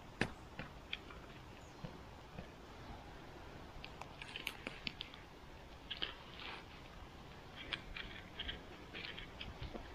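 Scattered crunches, clicks and rustles of forest soil and leaf litter being disturbed, bunching into short flurries around the middle and again near the end.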